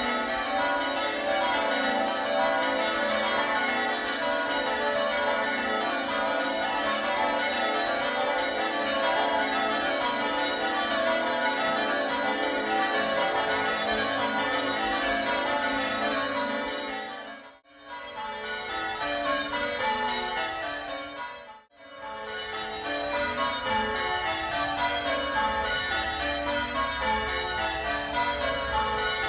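A ring of six full-circle church bells, cast by Gillett & Johnston in 1928 with the tenor in A, struck in quick succession in runs falling in pitch as the bells are raised, the treble sounding loudest. The sound drops out briefly twice, about two-thirds of the way through.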